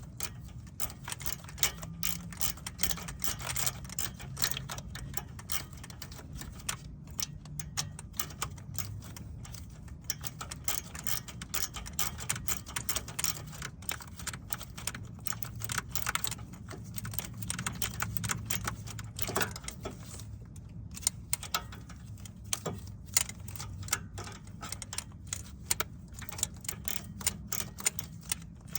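Hand tools working on the engine: rapid ratchet-wrench clicking with metal parts and tools clinking, in irregular spurts.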